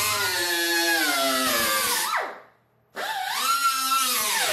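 Cut-off wheel grinding through the steel sheet of a car's wheel-arch panel, a high whine whose pitch sags as the disc bites into the metal. The sound breaks off briefly just past halfway, then starts again, the whine rising and then dropping under load near the end.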